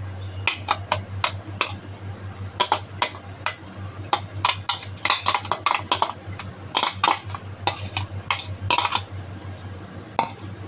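A spoon scraping and clinking against a grinder cup and a bottle as ground garlic is spooned into the bottle: irregular short clinks and scrapes, thickest in the middle, over a steady low hum.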